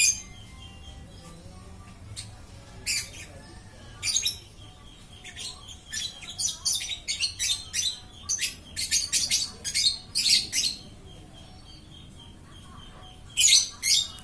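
Lovebird giving shrill, squawky chirps: single calls at first, then a quick run of many calls in the middle, and two more near the end.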